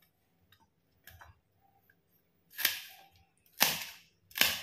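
Small knife striking and scraping a steel plate while cutting the pith out of green capsicum rings: a faint tap, then three sharp metallic clicks about a second apart in the second half.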